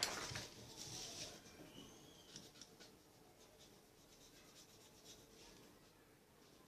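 Wet paintbrush stroking over paper, a faint soft brushing that is strongest in the first second or so and then dies down to barely audible strokes.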